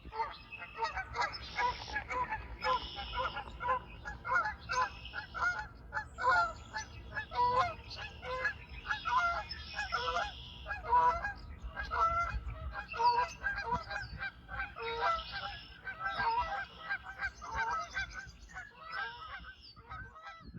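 A flock of geese honking, with many short calls overlapping.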